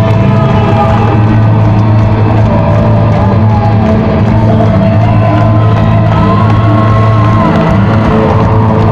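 Live rock band playing loudly and steadily, with audience whoops and shouts mixed in.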